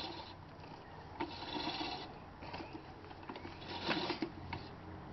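Manual push reel mower fixed to the front of a bicycle, its spinning reel rasping and clattering as it cuts through grass, in irregular bursts.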